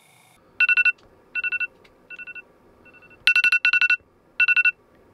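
iPhone alarm going off: electronic beeping in quick bursts of about four pulses, the bursts repeating every half second to second and rising and falling in loudness.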